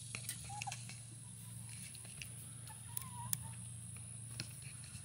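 Quiet outdoor ambience: a steady high-pitched insect drone, with a couple of faint short chirps and a few light clicks.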